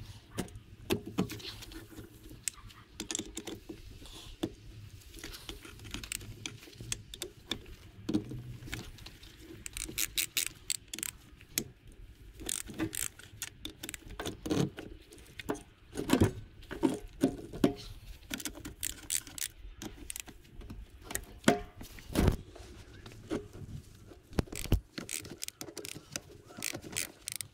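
Metal engine parts and hand tools clinking and knocking at irregular intervals as a Yamaha YZF R1 motorcycle engine is taken apart, some knocks ringing briefly.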